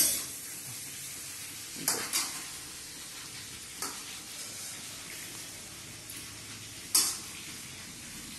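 Chopped star fruit frying in oil in a wok with a steady sizzle. A metal spatula knocks and scrapes against the pan about five times, most sharply about two seconds in and again near the end.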